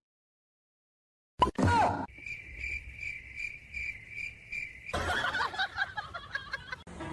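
After a second and a half of dead silence, a short sound falling in pitch, then steady high chirping at about three chirps a second, like a cricket, followed by a stretch of mixed, noisier sounds.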